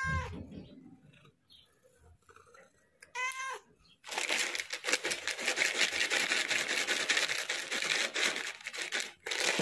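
A domestic cat meows twice in short calls, once at the very start and again about three seconds in. Then a loud crinkling, rustling noise runs for about five seconds.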